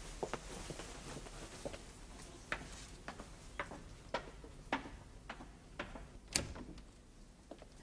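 Clock ticking steadily, about two sharp ticks a second, one tick louder than the rest near the end.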